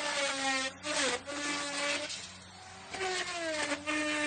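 Electric wood router cutting into wood in repeated passes. The motor's whine drops in pitch each time the bit bites into the wood, then holds steady under load, with a quieter lull about two seconds in.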